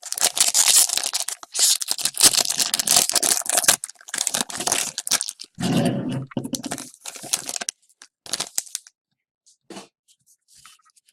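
A hockey card pack's wrapper being torn open and crinkled. The noise is dense for about four seconds, then comes in shorter bursts of crinkling that thin out near the end.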